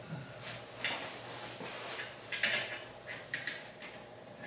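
Faint scattered clicks and rustles of hands handling a plug-in power adapter's cord and the wires at a wall-mounted sprinkler controller, a few sharper clicks between about two and three and a half seconds in.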